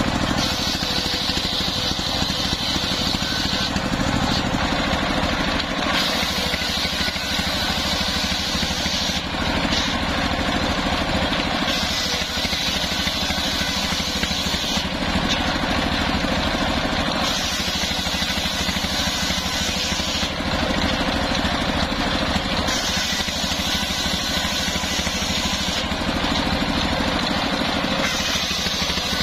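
Engine-driven circular saw: a stationary diesel engine runs steadily while its belt-driven blade rips waru (sea hibiscus) wood in repeated passes. Each cut adds a few seconds of high saw noise over the engine, then drops back to the engine and the freely spinning blade between passes.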